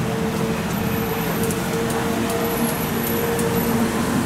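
Automated meatball-grilling machine running: a steady motor hum and drone from its rotating skewer mechanism, with a few light clicks about a second apart.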